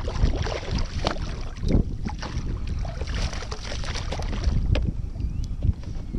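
Water splashing and crackling as a hooked redfish thrashes at the surface beside a kayak, for about the first five seconds. Steady wind rumbles on the microphone underneath.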